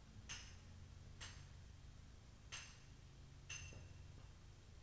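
Small bell tinkling four times, about a second apart, each a short bright ring over a faint low hum.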